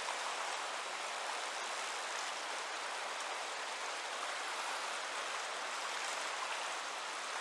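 Rushing whitewater of river rapids: a steady, even hiss of fast water.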